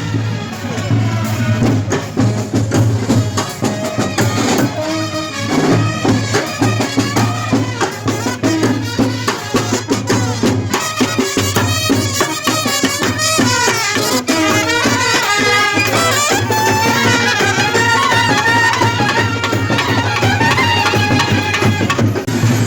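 Traditional percussion-led music, with steady drumming and a wavering melody line that comes to the fore about halfway through.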